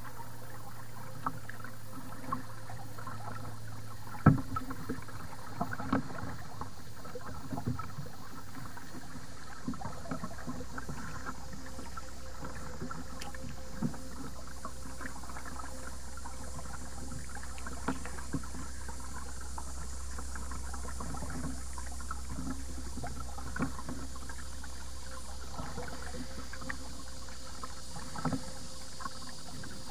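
Kayak paddling on calm water: light paddle splashes and drips with scattered sharp knocks, the strongest about four seconds in, over a steady low hum.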